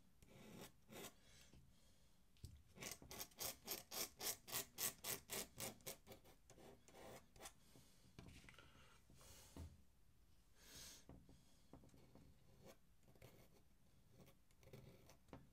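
Steel dip-pen nib scratching on paper: scattered single strokes, and a quick even run of about a dozen strokes, some four a second, from about two and a half to six seconds in.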